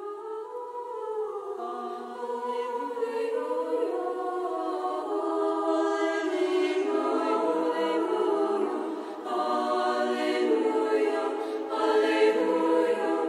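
A choir singing slow, sustained chords of sacred music, fading in at the start.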